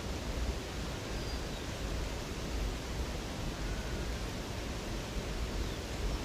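Steady rush of flowing river water, with a few faint, brief bird chirps above it.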